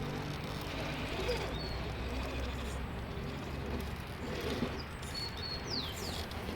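Outdoor ambience: a steady low rumble, with birds chirping briefly a few times in short falling whistles and faint distant voices.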